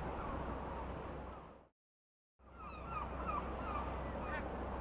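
Steady background noise that fades out to a brief dead silence about a third of the way in, then fades back in. A few faint seagull calls follow in the second half.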